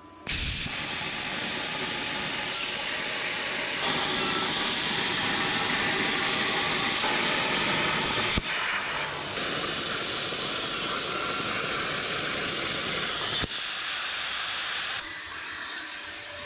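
CNC plasma table's air plasma torch cutting steel plate: a steady, loud hiss of arc and compressed air, with a few abrupt jumps in level. The hiss stops about a second and a half before the end.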